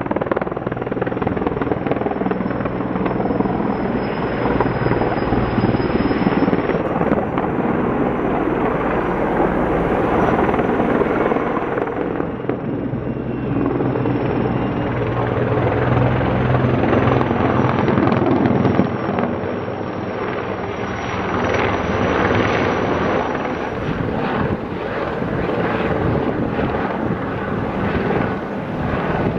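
Firefighting helicopters running overhead: steady rotor and engine noise with a thin, wavering high whine. The whine stops near the end, and the noise becomes more uneven as a lighter helicopter carrying a water bucket passes.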